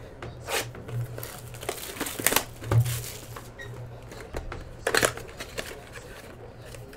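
Cardboard trading-card box being slid out of a stack and handled, giving a few short rustles and scrapes of cardboard and wrapping.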